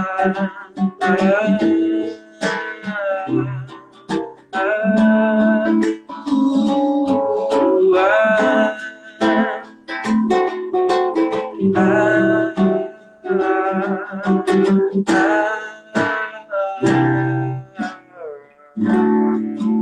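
Acoustic guitar playing under a wordless sung melody, in phrases with short breaks between them.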